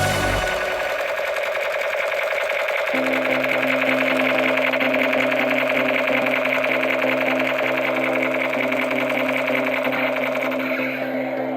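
Battery-powered toy's motor rattling rapidly and steadily, with a tinny electronic tune starting about three seconds in.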